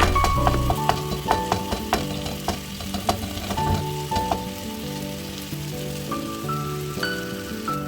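Chicken qeema sizzling on a tawa while it is stirred, with sharp clicks and scrapes of a spatula against the pan. The clicks come thick and fast for the first few seconds, then thin out.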